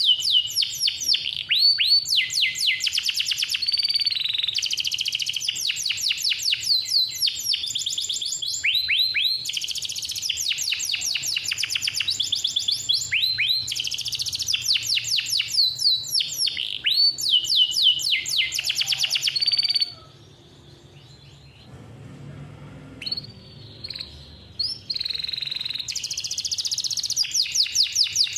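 Male domestic canary singing in full song: long, fast rolls and trills of rapidly repeated high notes in phrases several seconds long. About two-thirds of the way in it falls quiet for roughly five seconds, with only a few short notes, then starts singing again.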